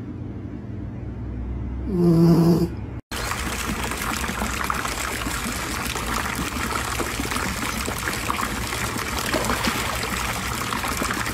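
A golden retriever lets out one short, pitched vocal yawn about two seconds in. Then comes a steady, dense sound of water splashing and sloshing as a dog wades into a swimming pool.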